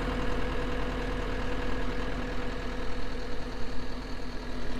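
Diesel engine of a John Deere 333G track loader running steadily, a constant hum over a low rumble.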